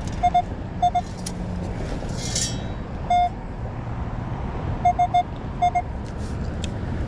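Short electronic metal-detector beeps in quick groups of two or three, one held a little longer about three seconds in, sounding while a strong target is being located. A brief hiss about two and a half seconds in.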